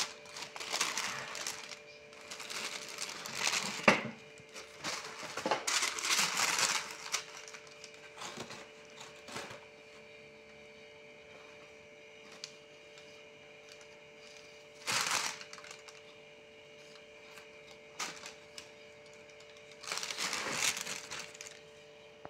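Hands rustling a crochet cardigan and the tissue paper and cardboard of its shipping box, in about six separate bursts with quiet gaps between them and one sharp click about four seconds in. A faint steady hum runs underneath.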